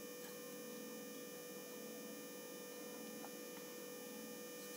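Faint steady electrical hum with a constant mid tone and thin high whines, and a couple of tiny clicks; nothing else is heard.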